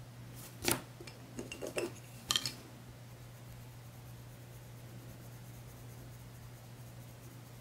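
Coloured pencils clicking against each other as one is put down and another picked up: a sharp click, a quick cluster of lighter taps, then two more sharp clicks, all within the first two and a half seconds. After that only a faint steady low hum remains.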